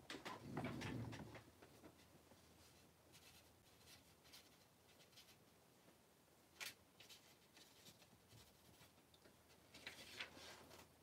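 Mostly quiet room with faint handling sounds at a fly-tying bench: soft rustles and light ticks, one sharper click a little past halfway, and a short patch of rustling near the end.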